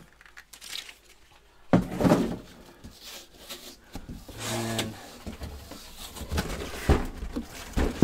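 Cardboard box flaps and foam packing being handled: a sudden loud thump of cardboard about two seconds in, then rustling, scraping and a few softer knocks. There is a short low droning tone about halfway.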